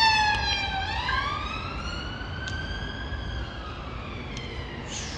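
Emergency vehicle siren wailing: a pitched tone that dips for about a second, then glides slowly up and back down.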